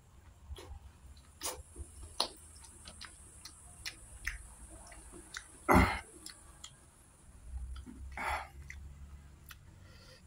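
Close-miked eating by hand: wet mouth clicks and smacks from chewing rice and sardine, with a much louder short noise about six seconds in.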